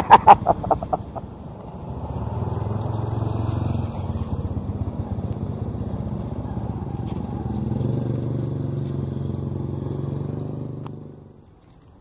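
A small motorcycle engine running as it rides up close and passes, over the drone of the truck's engine, swelling about 8 s in and fading away near the end. At the very start there is a quick run of loud knocks.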